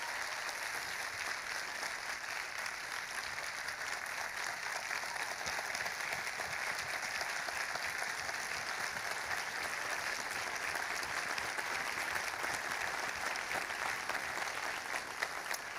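Congregation applauding steadily, a dense patter of many hands clapping, fading out at the very end.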